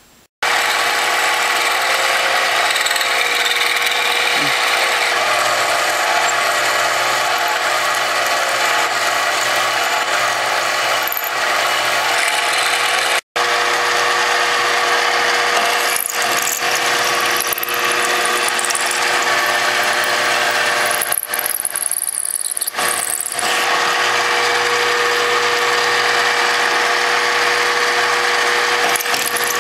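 Microlux 7x14 mini lathe running with its spindle turning aluminium bar stock while a 17/64-inch drill in the tailstock chuck cuts a pilot hole: a steady motor tone over the hiss of the cut. A brief high squeal comes about two-thirds of the way in.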